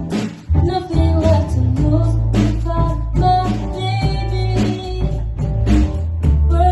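A woman singing a song with guitar accompaniment over a steady, full bass line.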